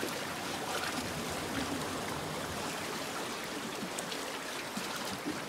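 Seawater sloshing and swirling between concrete wave-breaker blocks: a steady wash of water.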